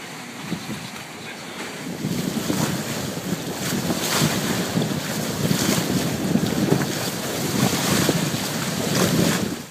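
Water rushing and splashing against the hulls of a Cross 36 trimaran sailing fast through choppy wind waves, with wind buffeting the microphone. It grows louder about two seconds in, with occasional bigger splashes.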